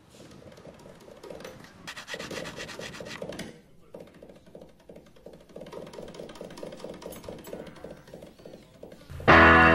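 Rough scraping and rubbing of skateboard grip tape being pressed down and trimmed with a utility knife, loudest a couple of seconds in. Near the end, loud rock music with guitar comes in.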